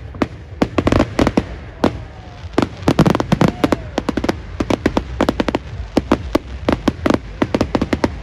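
Fireworks display: aerial shells and cakes bursting in rapid, irregular bangs and crackles, several overlapping at once, with a heavier cluster about three seconds in.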